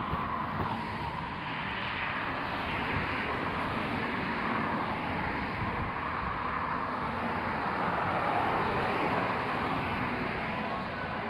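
Steady road traffic noise from large vehicles passing, a continuous rushing engine and tyre sound that swells gently partway through.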